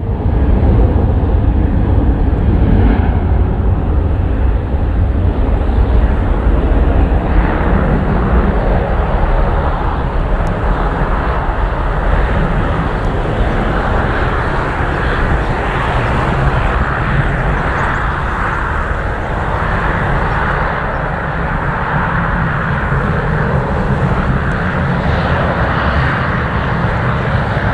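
Etihad Airbus A380's four turbofan engines running at taxi power as the jet rolls slowly past. There is a steady deep rumble, and a higher rushing tone comes up about halfway through.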